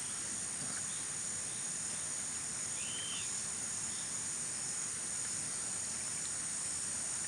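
Steady, high-pitched chirring of insects in the fields, with one short rising-and-falling whistled note about three seconds in.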